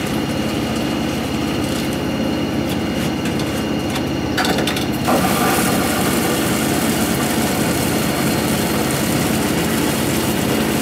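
Warm water running from a tap into a plastic watering can as it fills: a steady rushing that grows a little louder about five seconds in.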